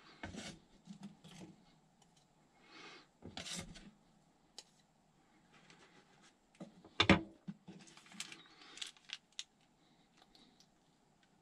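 Hands working at a small kitchen counter while topping a hot dog: short rustles and scratches with scattered light clicks, and one sharper knock about seven seconds in.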